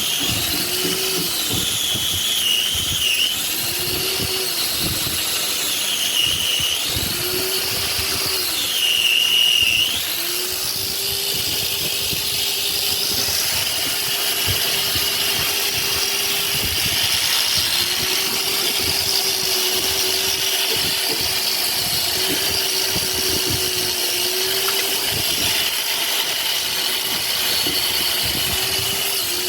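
Handheld electric power tool running continuously, its motor pitch sagging and recovering several times in the first ten seconds as it is loaded against the work, then holding steadier with brief dips.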